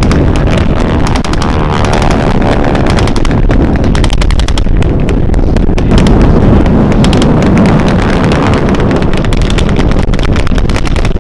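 Airshow battle display: a loud, continuous rumble of warbird aircraft engines and pyrotechnic blasts, with rapid crackling gunfire from blanks running throughout.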